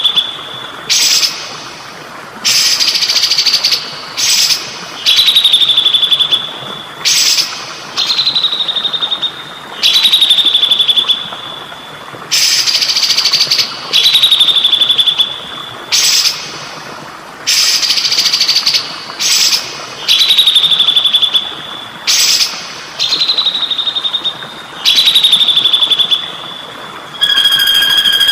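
A recorded songbird call repeating about every two and a half seconds: each a short harsh burst followed by a clear whistle that falls and levels off, over a steady trickling-water hiss. Near the end it gives way to a different, steady two-note whistle.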